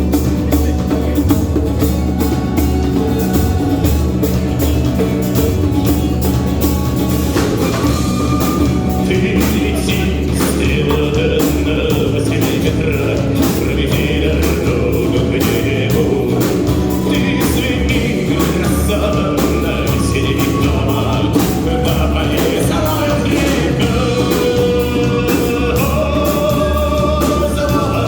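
A live band playing a song with drum kit and guitar; singing comes in about nine seconds in.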